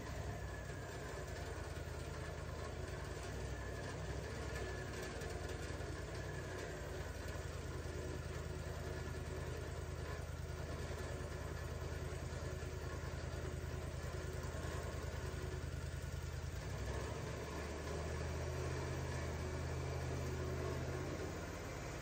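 An engine running steadily at a low idle, its low hum shifting a little about seventeen seconds in.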